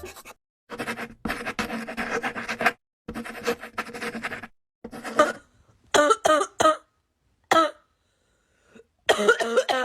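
Coughing in repeated fits: two longer rough bouts of coughing in the first half, then shorter, throatier coughs with pauses between them, three quick ones about six seconds in and another run near the end.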